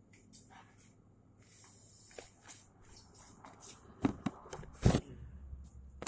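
Handling noise of a phone being picked up: scattered rustling and light clicks, then two sharp knocks about four and five seconds in, followed by a low rumble of the phone being held.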